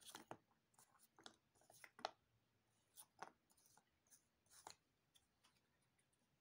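Faint clicks and light scrapes of cardboard jigsaw puzzle pieces being handled, about a dozen small taps over the first five seconds, then quiet.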